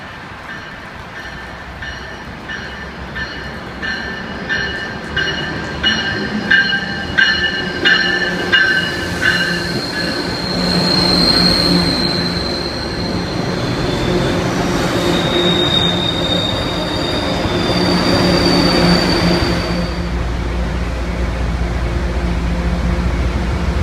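MBTA commuter train led by a CTC-4 bilevel cab car arriving at a station: its bell rings at about one and a half strikes a second, then the wheels squeal as the coaches roll through a curve, a high squeal that shifts in pitch. Near the end a low rumble takes over.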